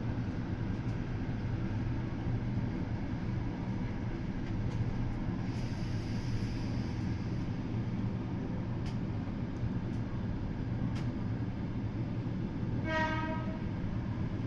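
Meitetsu 200 series electric commuter train running along the line, a steady low rumble of wheels and running gear. A brief high tone sounds about 13 seconds in.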